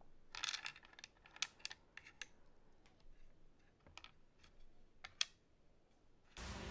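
Irregular light clicks and taps, a few at a time with gaps between them, some sharper than others. Background music starts suddenly near the end.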